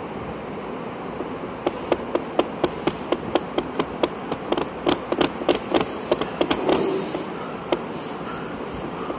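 A quick, uneven run of sharp taps, about three or four a second, lasting about six seconds, over a steady background rumble.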